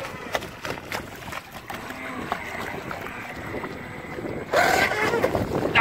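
Gusty wind buffeting the microphone over choppy water, with a small electric RC speedboat running on the lake. About four and a half seconds in, a sudden louder rush of water with a brief whine lasts under a second.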